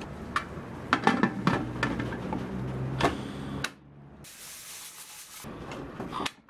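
Aluminium pressure cooker lid clinking and scraping against the pot as it is fitted and locked shut, a run of sharp metallic knocks over the first three seconds. Later a short steady hiss lasts about a second.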